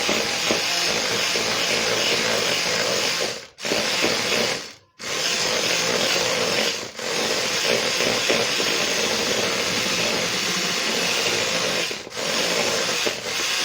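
Electric mixer running steadily as it whips chantilly cream with gelatin mixed in, cutting out briefly twice about three and a half and five seconds in.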